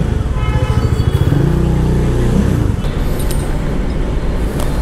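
A Bajaj Dominar's single-cylinder engine running at low revs as the motorcycle is ridden slowly and brought up to a stop, with a brief rise in revs about halfway through.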